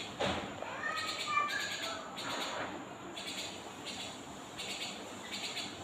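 A bird squawking in a few short calls during the first two seconds, over a background of pulsing chirps that repeat about once a second.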